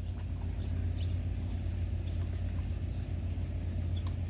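A small engine running steadily with a low, even hum, with faint scattered ticks above it.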